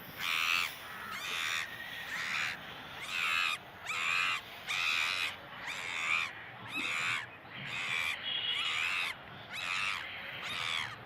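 A run of short, harsh animal calls repeating about twice a second without a break.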